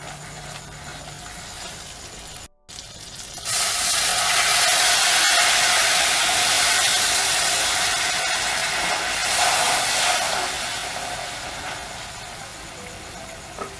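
About a quarter cup of water hitting a hot wok of caramelized sugar, butter and date paste. The pan sizzles loudly with hissing steam from about three seconds in, then slowly dies down, after a few seconds of quieter frying.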